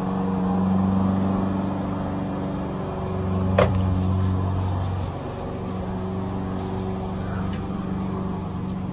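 A steady low hum, with a brief sharp click about three and a half seconds in.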